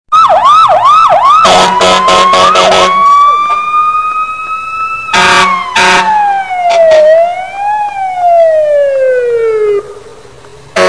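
Electronic police siren: about four quick whooping sweeps, then a string of short horn blasts, then a slow wail that rises, falls, rises once more and slides down to a low tone near the end. A short horn blast sounds at the very end.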